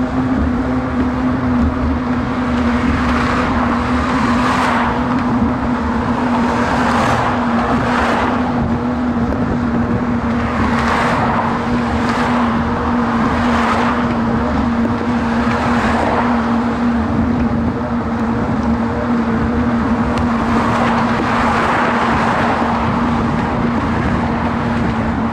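Cars driving past on the adjacent roadway, each one a swell of tyre and engine noise every few seconds, over a steady low hum and a constant rush of riding noise.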